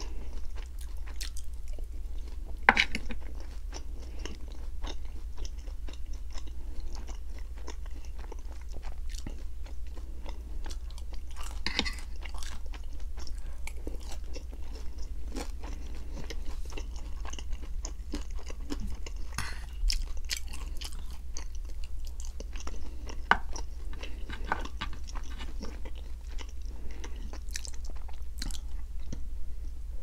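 Close-miked chewing and biting of orange chicken: wet mouth clicks with occasional crunches, a few louder ones about 3 and 12 seconds in, over a steady low hum.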